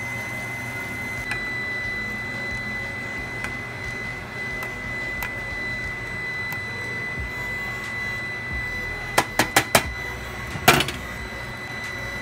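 A saucepan of instant noodles bubbles on the stove under a steady hum with a thin high whine. About nine seconds in come four quick sharp clicks, then one louder clack: the tongs knocking against the pot.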